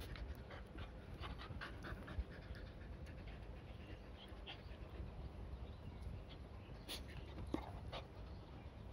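Dog panting, with scattered small clicks and mouth noises.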